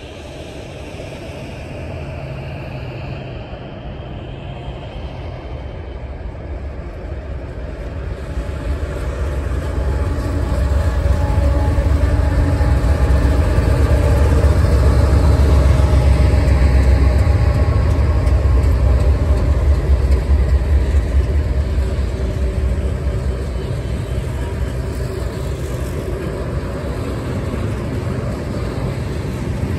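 Union Pacific diesel freight locomotives approach and pass close by, their engine rumble growing steadily louder to a peak about halfway through. After them, the steady rolling noise of the freight cars' wheels on the rails continues as the train goes by.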